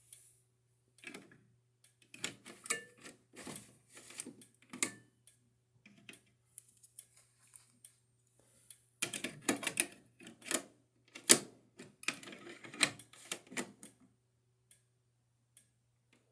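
Irregular clicks, taps and knocks from handling small objects, in two clusters, over a faint low hum.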